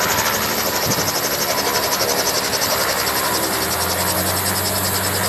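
Small helicopter running on the ground just after landing, its rotor and engine making a steady rapid beating; a low hum comes in near the end.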